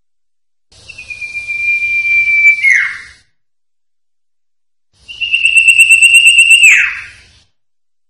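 Common iora (cipoh) singing two long whistles, each held at one pitch and then dropping sharply at the end. The second is higher, with a fast quaver.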